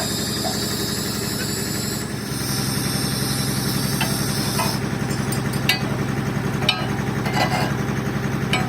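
An engine running steadily, its drone shifting slightly about two seconds in, with a hiss that stops midway and sharp metal clinks of tools on metal from about four seconds on.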